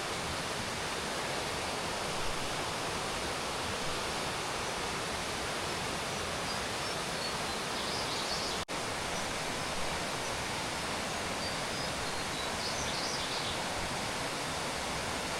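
Steady, even rushing of the Elai waterfall's falling water, with a couple of faint high chirps over it. The sound drops out for an instant about nine seconds in.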